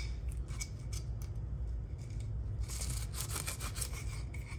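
Fillet knife blade slicing through a mangrove snapper and scraping along its skin and the plastic cutting board in a few short strokes, over a steady low hum.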